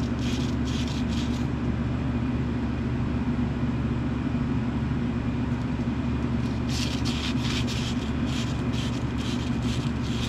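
Short rhythmic scraping strokes, two or three a second, in two spells, over a steady engine drone. It is the cleaning of the worn brushes and armature of the snowblower chute's linear actuator motor.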